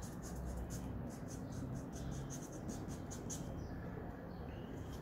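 Marker pen scratching across brown cardboard in a quick run of short back-and-forth drawing strokes, about three or four a second, thinning out after about three and a half seconds.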